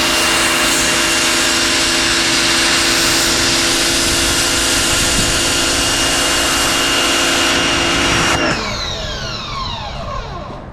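Harbor Freight electric pressure washer running with its spray hissing hard against a greasy engine block, the motor and pump holding a steady whine. About eight and a half seconds in the spray cuts off and the motor winds down with a falling whine.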